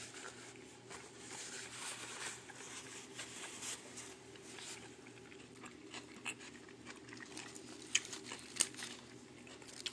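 A person chewing and crunching food quietly, with a few light clicks and rustles from handling. A faint steady hum runs underneath.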